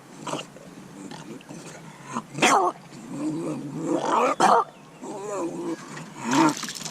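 Bulldog making a run of whining, grumbling vocalizations that rise and fall in pitch, with two sharp knocks in the middle.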